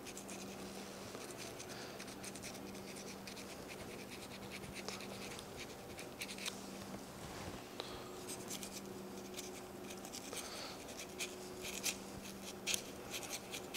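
Boning knife scraping and clicking faintly along the back of pork rib bones as the loin is cut away from the ribs, in scattered strokes that come more often in the second half. A low steady hum runs underneath.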